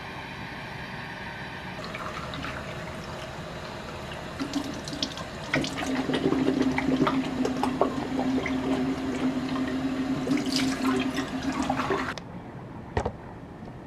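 Water running, apparently from a tap, with a steady low hum under the splashing; it grows louder about halfway through and stops suddenly near the end.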